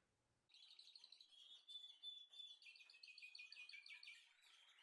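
Small birds chirping and twittering in rapid, high, quick chirps, starting about half a second in; faint.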